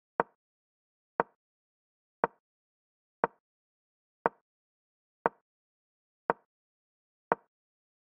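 Digital chess move sound effect: a short wooden click of a piece set down on the board, repeating evenly about once a second, each click marking one move played. Eight clicks in all.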